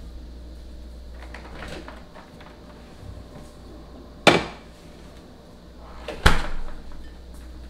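Refrigerator being opened and shut, with a sharp knock a little past four seconds in and a heavier thump about two seconds later.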